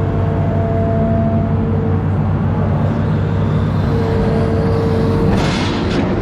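Amphibious excavator's diesel engine running steadily under load, with a few held whining tones over it and a short rush of hiss near the end.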